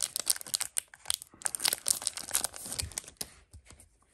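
Foil wrapper of a Pokémon TCG booster pack being torn open and crinkled in the hands: a dense run of sharp crackles that thins out after about three seconds as the cards are taken out.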